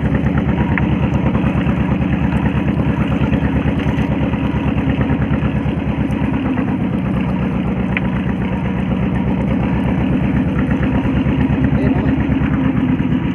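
A fishing boat's engine running steadily at an even speed, with a fast, regular beat.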